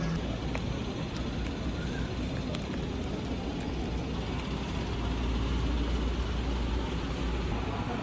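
Steady store ambience: a low rumble and hiss with a few faint clicks, the rumble growing stronger about halfway through.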